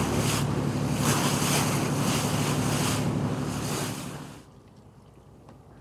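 Fishing boat underway: its engine runs with a steady hum under the rush of wind and wake water. The sound drops away suddenly about four seconds in, leaving only a faint low background.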